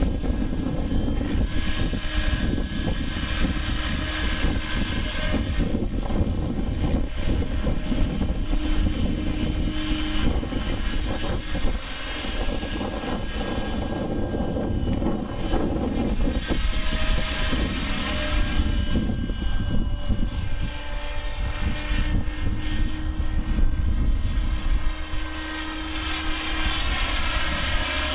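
Align T-Rex 600 radio-controlled helicopter in flight: the steady whine of its rotors and drive, shifting a little in pitch, over heavy wind buffeting on the microphone.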